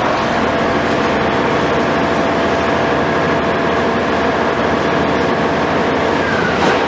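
CAT 374F demolition excavator's Cat C15 ACERT diesel engine running steadily at working speed, with a single knock near the end.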